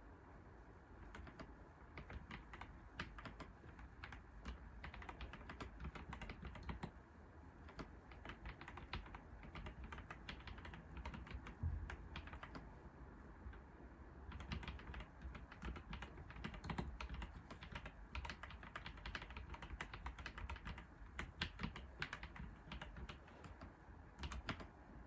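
Typing on a computer keyboard: rapid runs of keystrokes broken by short pauses, with a soft low thump about halfway through.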